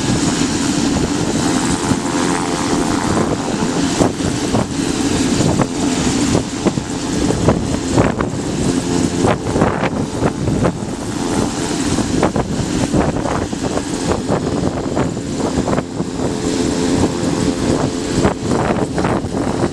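Pilatus PC-12's single Pratt & Whitney PT6A turboprop running at taxi power, a steady propeller drone with a strong low hum. Irregular short thumps sound over it from about a third of the way in.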